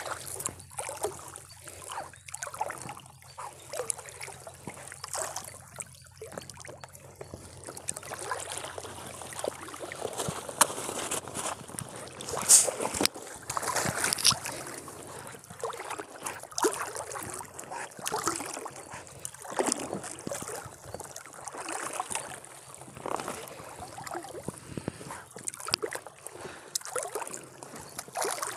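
Water dripping and splashing as a wet nylon fishing net and its line are handled over the side of a small boat, a run of irregular small splashes with a sharper one about halfway through.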